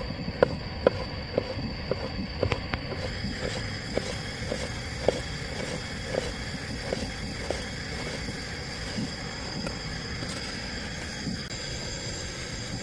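Chef's knife slicing pickled yellow radish (danmuji) on a wooden cutting board: a sharp knock of the blade on the board about twice a second, stopping after about seven or eight seconds. A steady hiss runs underneath.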